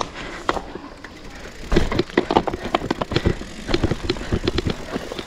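Mountain bike riding down a dirt trail: tyres on loose ground with frequent irregular rattles and knocks from the bike jolting over bumps, over a low rumble of wind on the microphone.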